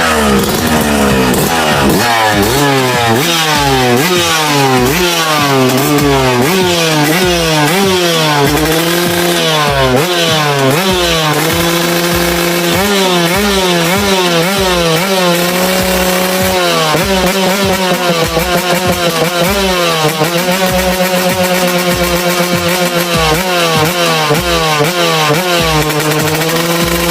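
Two-stroke engine being revved over and over, its pitch climbing and dropping in quick blips, with several stretches held at steady higher revs.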